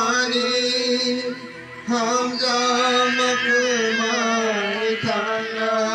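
A toddler crying in long, drawn-out wails, with a short break for breath about one and a half seconds in and another near the end.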